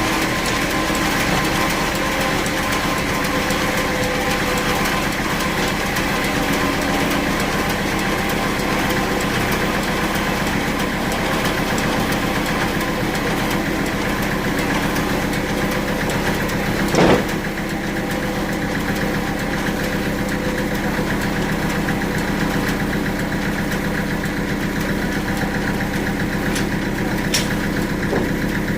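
Band sawmill running steadily, a constant machine hum, with one loud knock a little past the middle and a few faint ticks near the end.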